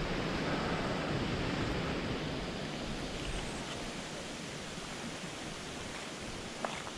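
Stream water running over rocks: a steady rushing hiss that fades gradually as the walker moves away from the water.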